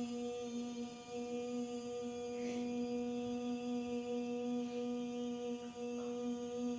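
A voice humming one long, steady note, held without a break: sound-healing toning directed at the lungs and sinuses.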